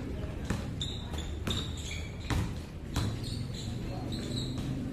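A basketball bouncing on an indoor court, several irregular strikes, over the background chatter of voices in the gym.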